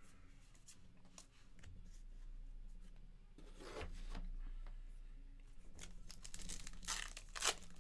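Baseball card pack wrapper being torn open. The crackling rip comes near the end, after quieter rustling of cards being handled.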